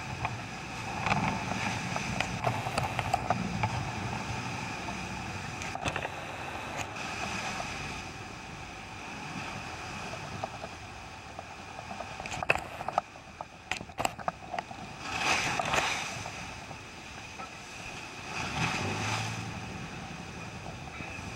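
Boat motor running steadily as the boat pitches through rough, choppy sea, with splashing water and wind swelling every few seconds. A few sharp knocks come about two-thirds of the way through.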